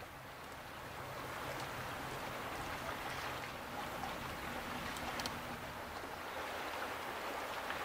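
Steady wash of choppy harbour water, with a faint low engine hum from the distant tugboats and tanker that fades after about five seconds.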